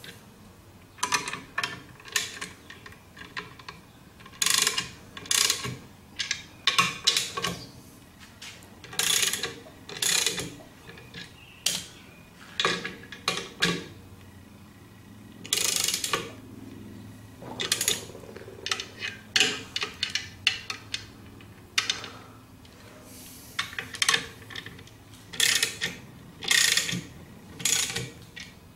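Hand ratchet wrench clicking in short bursts of a few strokes, with pauses between, as the clutch pressure plate bolts are tightened onto the flywheel a little at a time, working around the plate.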